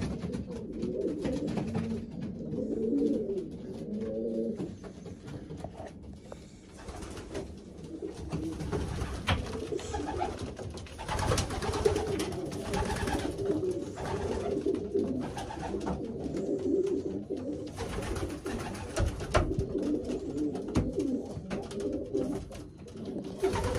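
Racing pigeons cooing continuously in a small loft: many overlapping low, wavering coos, with scattered light clicks and rustles among them.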